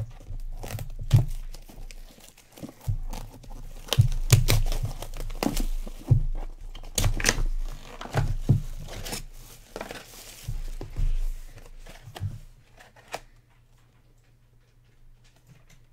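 Plastic shrink-wrap being torn and crinkled off a sealed trading-card box, in irregular crackling bursts with dull handling thumps, stopping about three seconds before the end.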